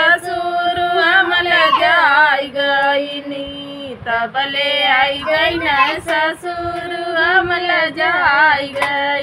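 Women singing a folk song, the melody wavering with ornaments over a lower held note, with a short break about four seconds in.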